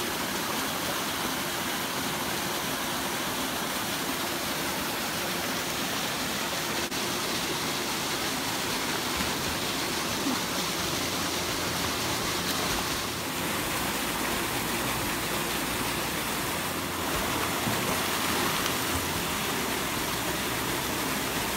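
A small waterfall pouring into a river pool: a steady rush of falling water.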